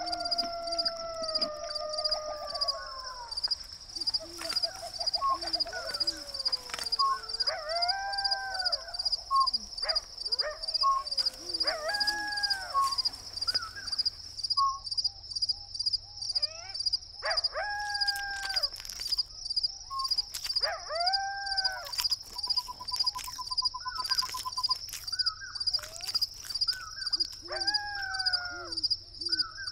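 Coyotes howling in repeated rising-and-falling calls, over a steady, fast-pulsing chorus of crickets. A short buzzy trill sounds about three-quarters of the way through.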